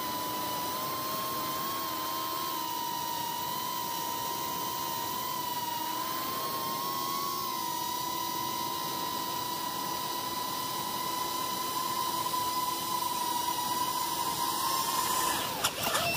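Micro FPV quadcopter's brushless motors and propellers whining steadily in flight, a high buzz with overtones. Near the end the pitch wavers and drops as the quad sets down in the grass.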